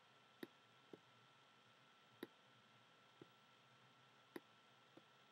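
Faint computer mouse clicks, about six at irregular intervals, over near-silent room tone.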